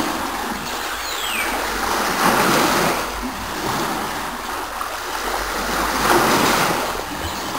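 Ocean surf: waves washing in and drawing back, swelling louder about two seconds in and again about six seconds in.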